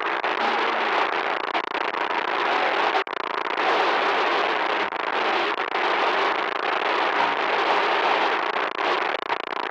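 Loud, continuous electronic static noise, a harsh crackling hiss that cuts out for an instant about three seconds in.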